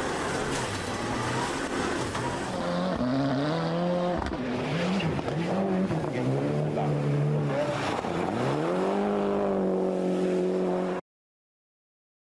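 A rally car's engine accelerating hard through the gears, its pitch climbing and then dropping at each of several quick shifts before holding high revs. It cuts off abruptly about eleven seconds in.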